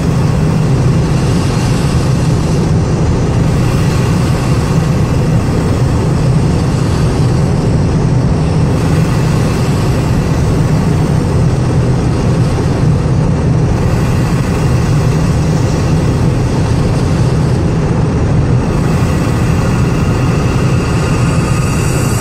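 Steady cabin noise of an Audi A6 2.0 TDI ultra holding about 250 km/h: wind and tyre rush over a low drone from the four-cylinder diesel, level and unchanging in pitch throughout.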